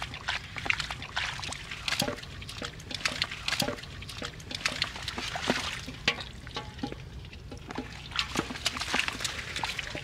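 Hands splashing and squelching in shallow muddy water, with irregular small splashes and drips.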